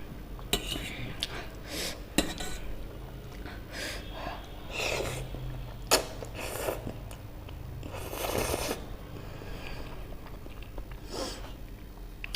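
Eating utensils clinking against a bowl during a meal of spicy ramen noodles: a few sharp clinks, with longer noisy stretches of eating between them.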